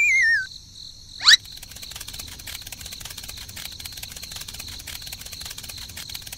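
A wavering whistle falling in pitch fades out, then a short rising swoosh sounds about a second in. After that, steady high cricket chirping.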